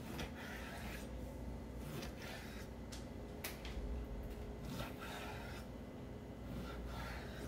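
Chef's knife slicing through a raw mahi-mahi fillet, the blade rasping through the flesh and scraping the bamboo cutting board in several short strokes, with one sharp tap of the blade about three and a half seconds in.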